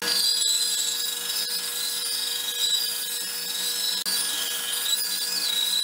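Bandsaw resawing a long poplar board on edge: the saw's motor runs steadily under a wavering high-pitched whine as the blade cuts through the wood.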